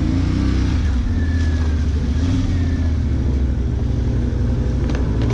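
ATV engine running at low revs, with small rises in pitch near the start and again about four seconds in.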